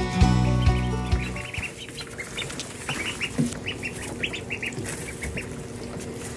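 Background music fades out in the first second and a half, then a group of ducklings peep, many short high peeps in quick succession.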